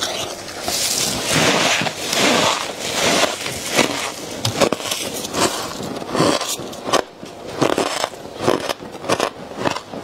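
Crisp freezer frost being handled and eaten: handfuls scraped and squeezed by gloved hands in the freezer, and bitten and chewed with crackly crunches. The sounds come in an irregular run of short crunching bursts.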